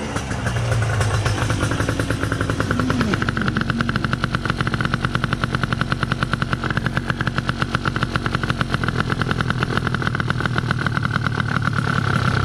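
Gilera Runner 180's two-stroke single-cylinder engine idling steadily on a Smartcarb SC2, with a brief rise and dip in pitch about three seconds in. The idle is running high because the carb has just been leaned out, and it is being turned down at the idle screw.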